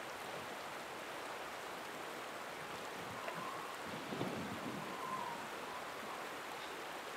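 Steady rush of a flowing salmon river's current, fairly quiet, with a faint thin whine around the middle and a soft low bump about four seconds in.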